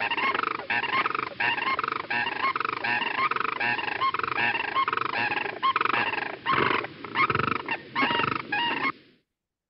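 Recorded unison call of a bonded pair of sandhill cranes: two birds calling together in a long run of loud, repeated rattling notes that stops about nine seconds in. Pairs typically give this call to defend their territory or strengthen the pair bond.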